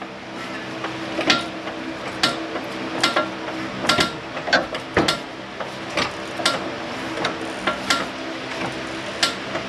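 Floor jack being pumped under the lower control arm, its handle and mechanism clanking about once a second, over a steady low hum.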